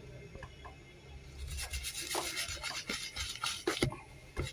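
Scratchy rubbing and scraping strokes close to the microphone, starting about a second and a half in, with a sharper knock near the end.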